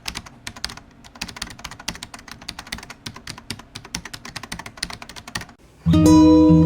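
Rapid, irregular clicking of keyboard typing, stopping about five and a half seconds in. Near the end, acoustic guitar music starts with a strummed chord.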